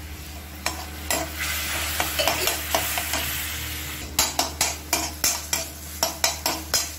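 Perforated steel skimmer stirring and scraping a tomato-onion masala around a metal kadai while it sizzles, a little water having just been added so the spices fry. From about four seconds in the spoon scrapes the pan in quick strokes, about three a second.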